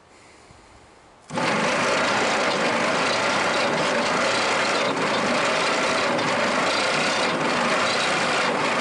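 Chrysler industrial 218 flathead six being cranked over by its starter, starting about a second in and running steadily. This is a dry compression test, and the cylinder under test builds only a low 60 psi.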